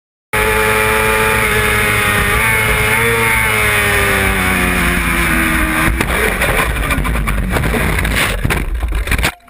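Kawasaki sport motorcycle at racing speed, its engine note falling steadily as the bike runs into turn 1. About six seconds in, a sharp knock marks the crash, and the steady engine sound gives way to a rough run of scraping and repeated impacts as the bike and camera tumble, cutting off abruptly near the end.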